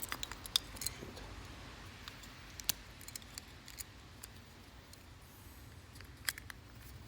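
Small sharp clicks and taps of a plastic car key fob and its CR2032 coin-cell battery being handled and fitted: a quick run of clicks in the first second, then a few scattered single ticks.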